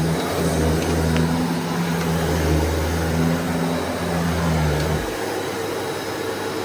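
Shark DuoClean Detect XL vacuum cleaner running with a steady rush of air and a low hum. The hum drops out about five seconds in while the motor's rush keeps going.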